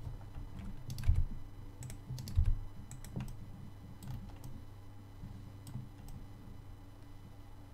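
Computer keyboard keys and mouse buttons clicked at irregular intervals, with two heavier knocks about one and two and a half seconds in.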